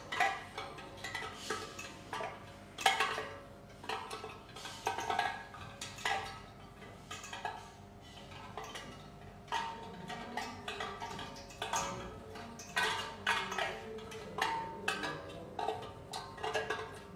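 Background music of plucked, percussive notes with an irregular, knocking rhythm.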